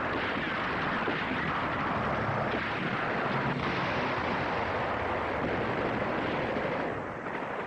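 Battle sound effects: a dense, steady rushing roar that dies down near the end.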